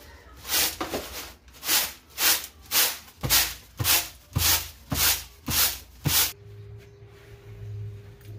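Dry mung dal tossed on a woven bamboo winnowing tray to shake off the husks: a rhythmic rustling swish about twice a second. The swishing stops about six seconds in, and a steady low hum follows.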